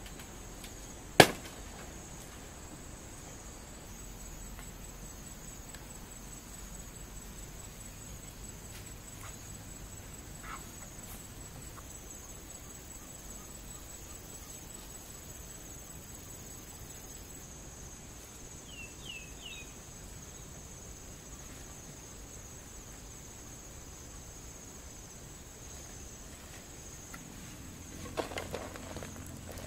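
Steady high-pitched chorus of insects, broken by one sharp snap about a second in and three quick chirps midway. Near the end comes the rustle and patter of soil tipped from a clay pot onto a banana leaf.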